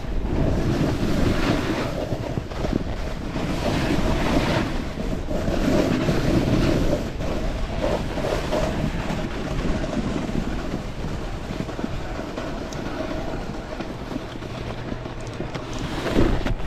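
Wind rushing over the microphone, together with the hiss of a snowboard sliding over wet snow. It swells and eases every second or two.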